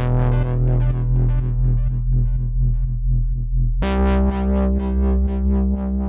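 Electronic background music: quickly repeated notes over a steady bass, changing to a new chord about four seconds in.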